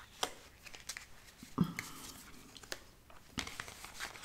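A small deck of fortune-telling cards being cut and sorted by hand: faint scattered clicks and rustles of the cards, with a slightly louder one about a second and a half in.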